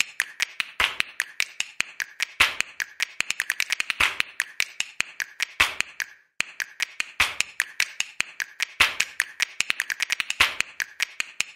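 A fast, uneven run of sharp clicks, several a second, with a short pause about six seconds in.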